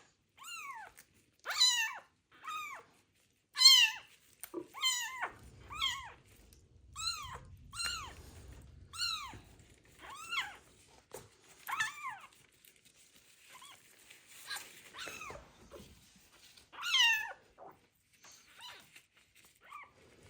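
A kitten crying over and over in loud, high-pitched meows, about one a second, each call rising and then falling in pitch. It is distressed at being bathed.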